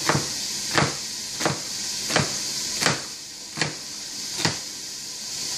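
Kitchen knife chopping an onion on a wooden cutting board: about seven chops, roughly one every two-thirds of a second, each a sharp knock of the blade hitting the board, over a steady hiss.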